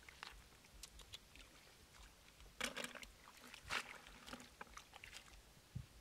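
Hands picking snails out of shallow water and wet weeds: scattered small splashes and squelches with light clicks of snail shells knocking together, loudest about halfway through.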